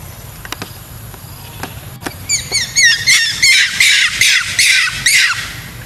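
Macaque screaming: a run of short high chirps, then a string of loud, high-pitched squeals about three a second for around three seconds.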